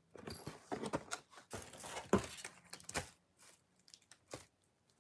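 Cardboard camera box being handled and opened: a flurry of rustling and scraping for about three seconds, then a few scattered taps.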